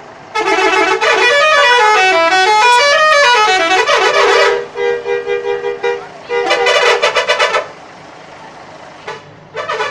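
Bus 'telolet' multi-tone musical horn playing a melody whose notes rise and fall, then a held two-note blast and a quick run of short pulsed toots. It stops about eight seconds in and starts again near the end.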